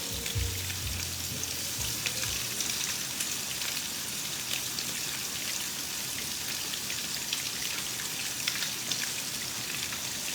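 Fish frying in hot grease: a steady sizzle with fine crackling and pops. A few low knocks come in the first couple of seconds.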